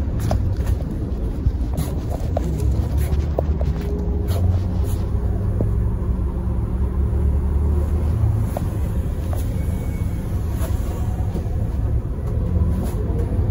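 Mercedes-Benz O405 city bus on the move, heard from inside the cabin: a steady low rumble of the diesel engine and road noise, with scattered rattles and clicks. The engine note shifts in pitch near the start and again near the end as the bus changes speed.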